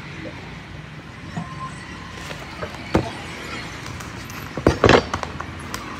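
Night street ambience: a steady hum of passing traffic, with a few sharp knocks, the loudest a cluster about five seconds in.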